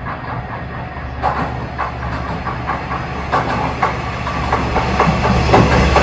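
Level crossing warning bell dinging in an even repeating rhythm while a KiHa 120 diesel railcar approaches. The railcar's engine and rumble grow steadily louder toward the end.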